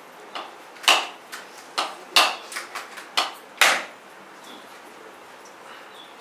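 A coconut being struck with a hard implement to crack it open: a run of about eight sharp knocks, irregularly spaced and some louder than others, each with a short ringing tail, stopping about four seconds in.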